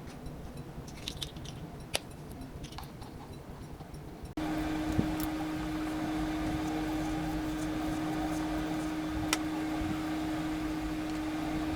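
Light clicks and scrapes of kitchen utensils, then, after an abrupt change about four seconds in, a steady electrical appliance hum with a low steady tone.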